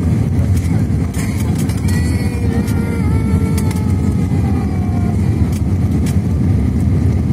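Steady cabin roar of an Airbus A320-family airliner on final approach, with jet engine and airflow noise heard from inside the cabin. Faint gliding high tones drift over the roar in the first few seconds.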